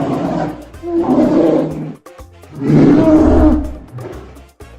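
Polar bear growling three times in rough bursts, over background music.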